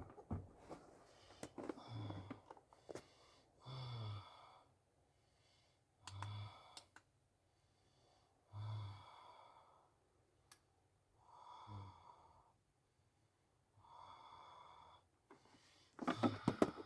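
A person breathing heavily, with one breath about every two to two and a half seconds.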